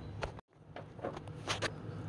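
A wrench working a downstream exhaust oxygen sensor loose, making a few light metallic clicks and scrapes. The sound drops out completely for a moment about half a second in, then the clicks resume.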